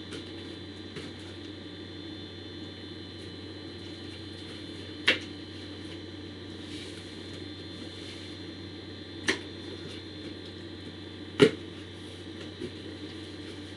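Cardboard USPS Priority Mail box being opened by hand: three sharp cracks several seconds apart as the flaps and tape give way, the last the loudest, with a few faint ticks, over a steady low hum.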